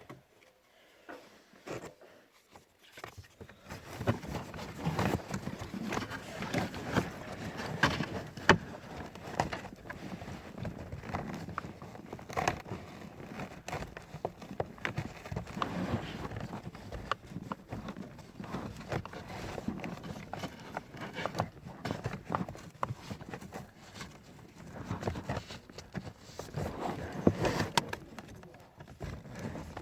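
Irregular clicks, taps and rustling of hands at work on car parts, starting a few seconds in.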